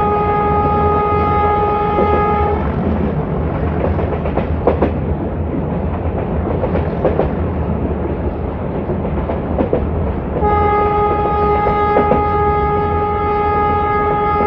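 A YDM4 metre-gauge diesel locomotive's horn sounds one long, steady blast that stops about two and a half seconds in. Then the train's running rumble with scattered clicks and clatter over the rails is heard, until a second long horn blast starts about ten and a half seconds in.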